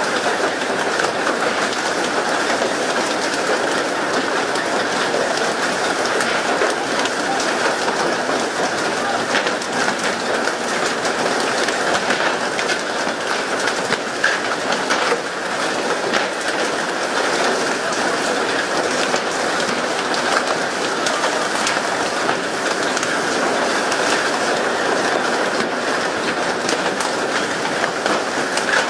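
Steady rush of water spray and churning sea along a fishing boat's hull, with many small knocks and slaps as skipjack tuna are flipped onto the deck and flap there.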